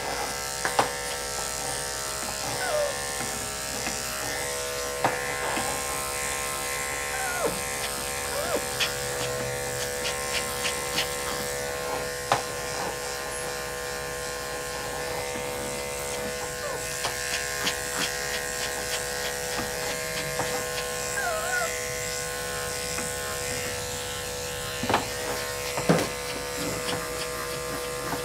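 Corded electric dog grooming clippers running with a steady buzz as they shave a dog's coat, with a few light clicks and knocks over it.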